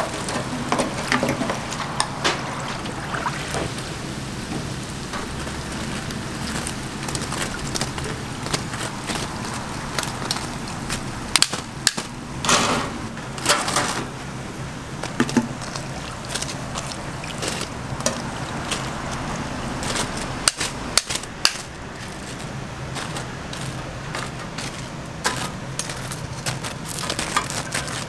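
Deep-fryer oil sizzling steadily around batches of breaded cheese croquettes, with sharp metal clicks and clinks from a wire fry basket and tongs as the croquettes are lifted out and stacked on a metal draining rack.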